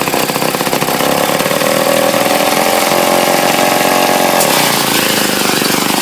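The Villiers engine of a 1950s reel lawn mower is revved up from a slow, pulsing run. Its pitch rises over the first couple of seconds and holds steady, then eases back down a little about four and a half seconds in.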